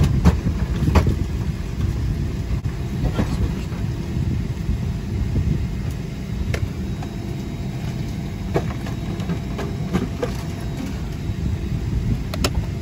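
Steady low rumble of the cabin noise inside a Boeing 777-300ER airliner, with a few light clicks scattered through it as the seatback entertainment touchscreen is tapped.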